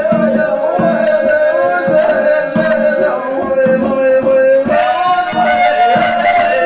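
Sufi rasma singing: a male voice holding long, drawn-out notes over hand-drum strokes. About two-thirds of the way through, the melody steps up to a higher held note, then drops back near the end.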